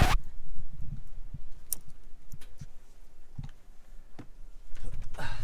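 Loose belongings that have fallen out of a van's cupboards clicking and knocking as they are shifted about: scattered light clicks and soft thuds, several a second at times, with a short rustle near the end.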